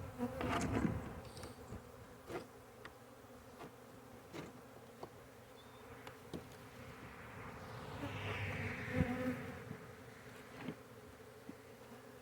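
Honey bees from an opened swarm-trap colony buzzing steadily in a low hum, with a few faint light clicks and knocks and a brief swell of rushing noise about eight seconds in.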